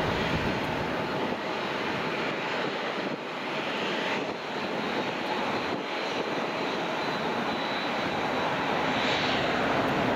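Jet airliner engines running as the aircraft passes: a steady rushing noise with a faint high whine that rises slightly near the end.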